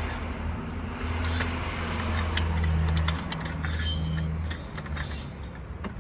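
Scattered metal clinks and ticks from working a floor jack and jack stand under a car, over a low steady hum that swells and fades a few times.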